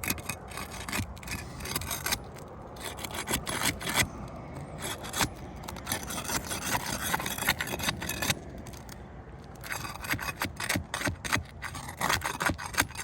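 Roof shingles being pried and torn up from the roof deck: continuous scraping and rubbing with many sharp snaps and clicks. The shingle tabs are stuck down and will not separate cleanly.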